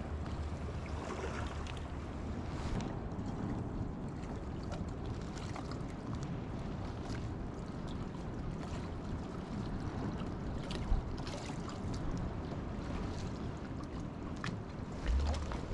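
Seaside ambience: wind buffeting the microphone over a steady wash of sea water, with a few faint clicks scattered through it. The wind rumble is heavier at the start and swells again near the end.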